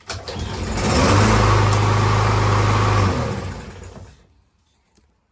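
Briggs & Stratton engine of a Troy-Bilt TB110 push mower starting after a carburetor cleaning. It picks up speed over about a second, runs steadily for about two seconds, then winds down and dies away.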